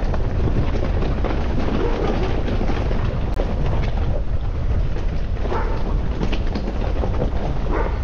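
Vehicle driving with a steady low rumble and wind buffeting the microphone; a dog barks twice near the end.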